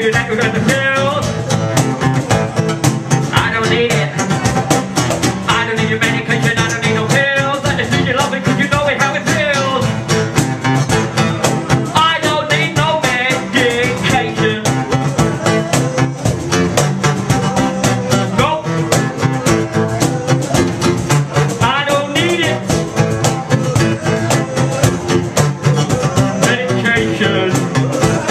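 Live rap performance: a voice rapping through a microphone and PA over a strummed guitar and a steady beat.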